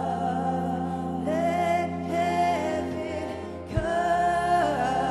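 Live worship music: women singing a slow, held melody into microphones over sustained keyboard chords, with a deep bass note coming in about four seconds in.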